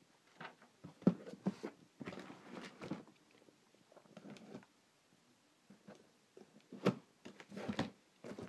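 Hands handling a taped cardboard shipping box and working at its flaps and packing tape: irregular knocks and clicks with short scraping, rustling stretches, quieter for a couple of seconds in the middle.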